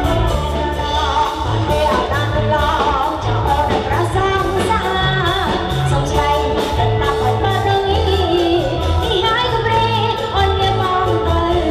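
Music with a singing voice over a steady beat: pulsing bass and quick, regular percussion ticks.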